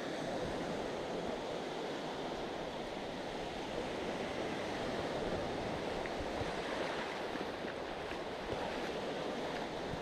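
Sea waves washing onto a sandy beach, a steady hiss of small surf.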